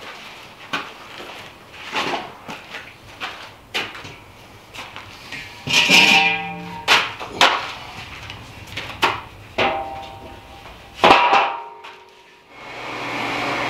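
Background guitar music, plucked and strummed. Near the end it gives way to a steady hum as the stove's inducer blower fan starts up.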